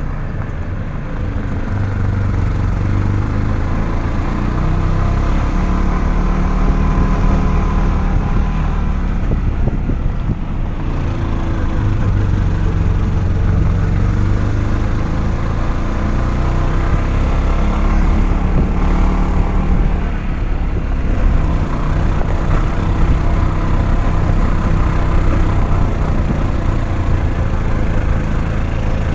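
A vehicle's engine and road noise as it is ridden in: a steady low rumble whose engine note rises and falls with speed.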